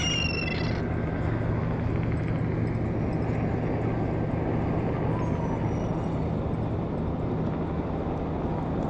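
Steady low drone over a constant wash of beach and surf noise, with a short high, slightly falling cry of a gull at the very start and a fainter gull call about halfway through.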